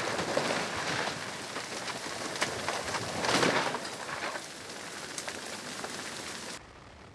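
Wooden house burning: dense crackling and popping of flames and timber, with a louder surge about three and a half seconds in. The fire sound cuts off abruptly near the end, leaving a quieter steady hum.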